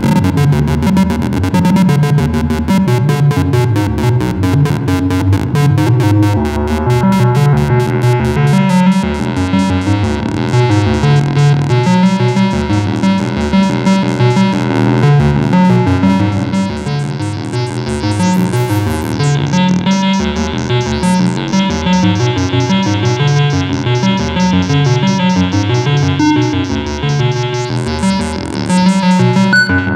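Moog Mavis and Werkstatt-01 analog synthesizers playing deep ambient music: a bass line of stepping sequenced notes, with a fast high pulsing in the first half that fades out. A high sweep rises and falls about two-thirds of the way in, and again near the end.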